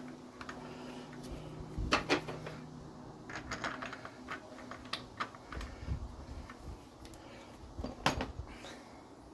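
Scattered metallic clicks and clinks of hand tools and fasteners while a new engine motor mount is fitted onto its studs, with louder knocks about two seconds in and again near the end.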